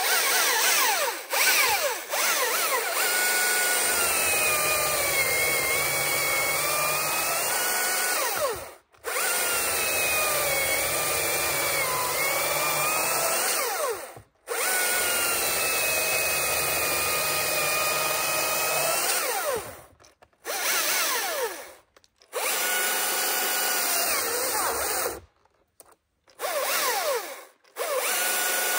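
Battery-powered top-handle chainsaw cutting into a log round. The motor's whine drops in pitch as the chain bites into the wood and climbs back as it frees up. It stops dead several times between short runs instead of idling.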